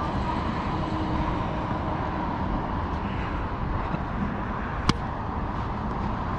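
A tennis ball struck once, a single sharp pop about five seconds in, over a steady background rumble.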